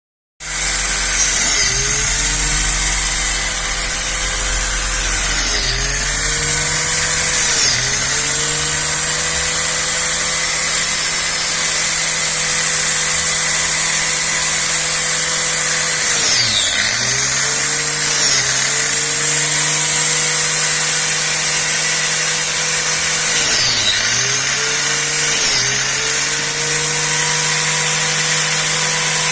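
Angle grinder with a homemade toothless cutting blade running at high speed. Its whine dips briefly and recovers about six times as the blade bogs down cutting through garlic stalks.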